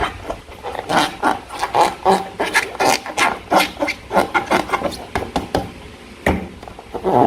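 Slime being worked by hand: an irregular run of short sticky clicks and squelches, several a second.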